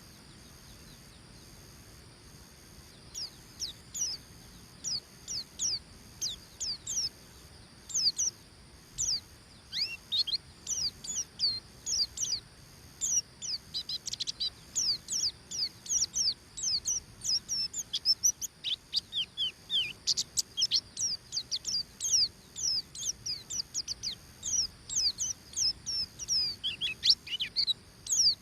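White-eye (pleci) singing its 'ngeriwik' song: a rapid string of short, high, downward-slurred chirps. The song starts about three seconds in and grows busier and more continuous.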